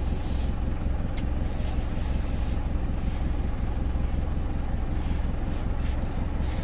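Truck engine idling in a steady low drone heard from inside the cab, with short slurps as rice noodles are sucked in, near the start and again around two seconds in.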